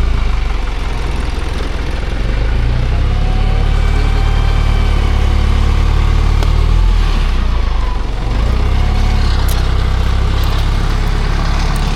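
An engine running steadily at low speed, with a deep even hum that eases briefly about eight seconds in.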